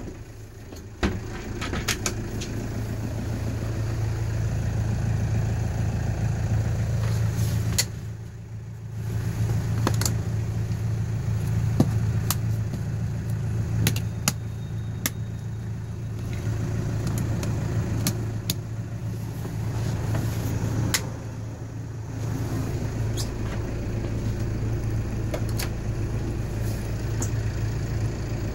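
Diesel vehicle engine idling with a steady low hum, with scattered clicks and knocks over it. The hum dips briefly twice, about eight and twenty-one seconds in.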